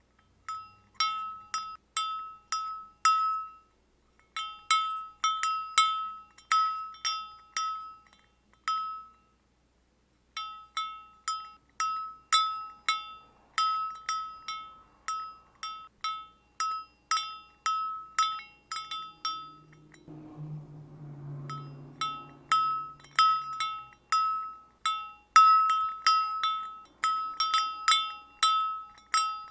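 A single cow bell clanking in an uneven walking rhythm, about two strikes a second, each a bright ringing tone, with short pauses where it stops. About twenty seconds in, a low drawn-out sound lasting about two seconds comes in under the bell.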